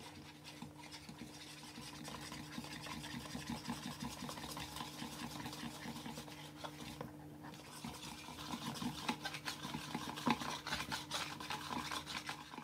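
Wire whisk beating a flour-thickened batter in a bowl: a quick run of light clicks and scrapes, with a short pause about seven seconds in.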